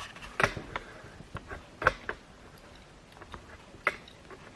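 Irregular sharp plastic clicks and taps from a broadband router and its cables being handled and plugged in, the loudest about half a second, two seconds and four seconds in.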